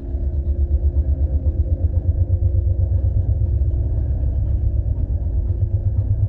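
Sci-fi UFO hover sound effect: a deep rumbling hum with a rapid, fluttering pulse and faint steady tones above it.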